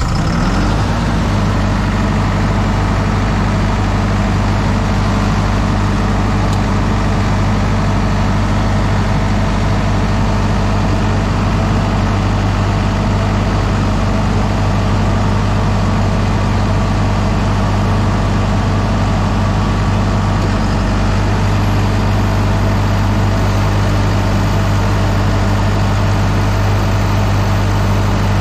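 A 100 kVA diesel generator set running steadily just after start-up, a loud, even engine hum, while an electrical load is switched onto it.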